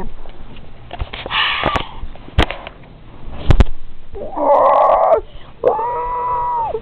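A child's vocal fight noises for a play fight: a breathy hiss, two sharp knocks, then a raspy growl and a long high squeal held near the end.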